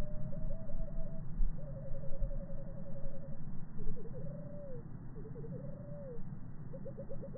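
A bird singing in short phrases: rapid trills and slurred rising-then-falling whistles, over a steady low rumble.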